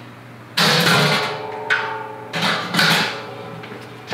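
Stainless steel grain basket clanking against the stainless brew kettle as it is lowered in: a loud metallic knock about half a second in that rings on, then a few lighter clanks that also ring.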